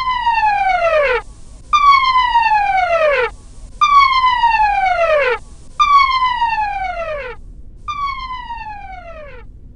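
A sci-fi sound effect: a siren-like electronic tone sliding steeply down in pitch, repeated five times about every two seconds, the last one fainter.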